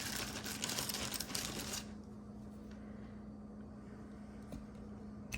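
Rustling and light clinking of costume jewelry being handled, for about two seconds, then only a low steady hum.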